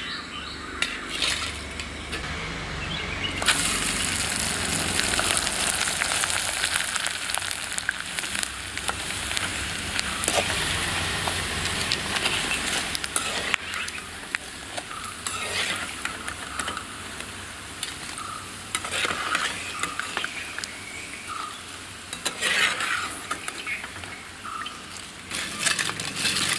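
Sun-dried banana-stem vadagam deep-frying in hot oil in a metal kadai, sizzling hard from about three and a half seconds in and easing off later. A ladle clinks and scrapes against the pan as the pieces are stirred and lifted out.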